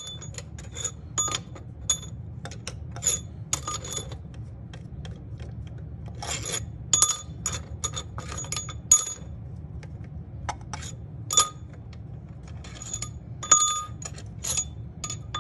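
A ratchet and socket clicking and clinking in irregular short runs, each click ringing briefly like small metal parts, as bolts are worked loose on the camshafts of an Ecotec four-cylinder head.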